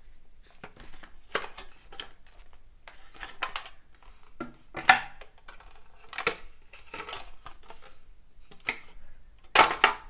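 Cardboard box, paper insert and plastic tray being handled: irregular rustling and small clicks, with a louder rustle near the end.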